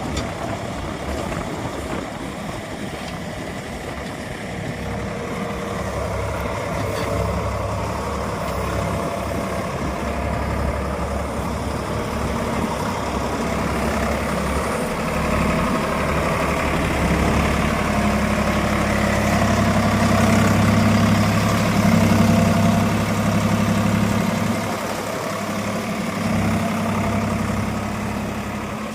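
Swaraj 855 FE tractor's diesel engine running steadily, then revving up louder for about ten seconds past the middle before dropping back.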